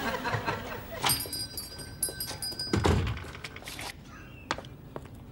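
A car's boot lid swung shut with one heavy thunk a little before halfway, after a steady high-pitched tone of about a second and a half. A few light taps follow near the end.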